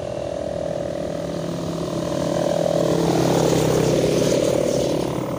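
Sendaren kite hummers mounted on motorcycles droning steadily, several held tones sounding together. About three seconds in, a motorcycle carrying one passes close by, and its engine and rushing air swell and then fade.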